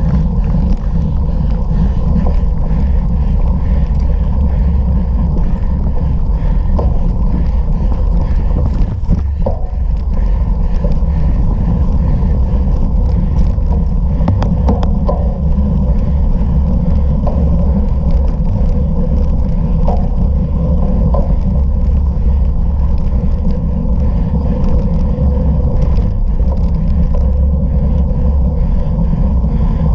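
Wind rumbling steadily on the microphone of a camera riding along on an off-road bicycle, with scattered short clicks and rattles.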